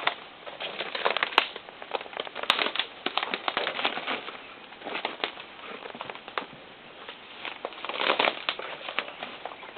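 Footsteps through dense undergrowth: twigs and dry brush crackling and snapping irregularly, thickest around the first few seconds and again near the end.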